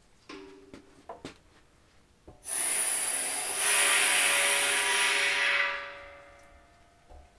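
A few light clicks and knocks at the valve, then compressed air from the compressor tank hisses loudly through the opened valve for about three seconds as it fills the newly connected air lines, fading away as the pressure evens out.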